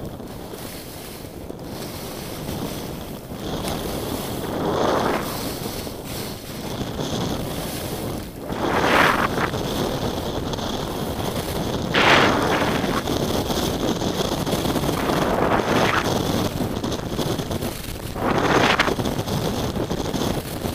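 Wind rushing over the microphone of a skier's body-mounted camera, with the hiss of skis scraping across packed snow swelling at each turn, about every three to four seconds.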